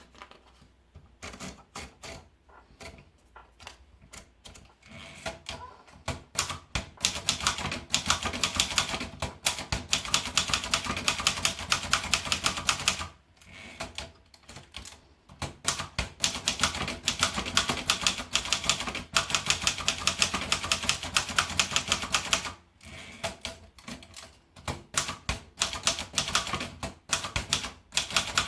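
Singer typewriter being typed on: rapid key strikes in runs. The strikes are slow and scattered for the first several seconds, then come fast, with two pauses of a couple of seconds, one around the middle and one near the end.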